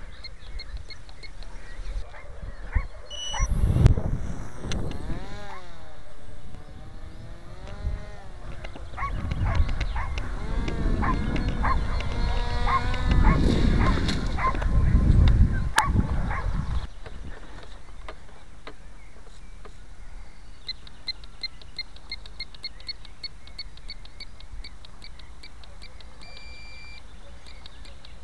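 Motor and propeller of a radio-controlled powered-parachute model running in flight, its pitch swinging up and down as it passes, with wind rumbling on the microphone. The motor sound stops a little past halfway, leaving steady faint ticking and one short beep.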